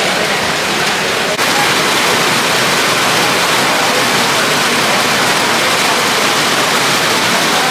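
Heavy rain pouring down, a loud, steady hiss of rain hitting the wet ground, with a brief dip about a second and a half in.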